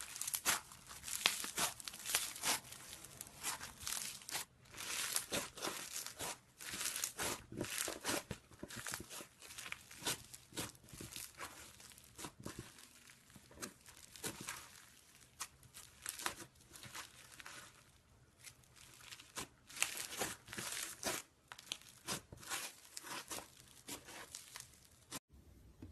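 Homemade slime being squeezed and stretched by hand, giving dense, irregular sticky crackles and pops. It cuts off abruptly near the end.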